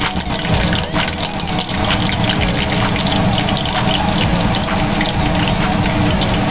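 Hot oil in a wok sizzling and crackling steadily around a breaded pork cutlet as it deep-fries, over a steady low rumble.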